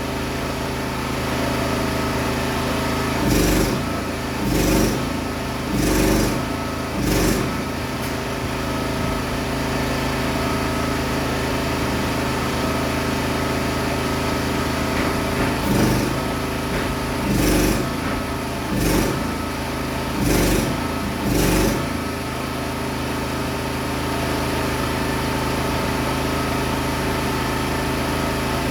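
A small engine running steadily, with loud knocks in two runs: four about three to seven seconds in, and five more in the middle.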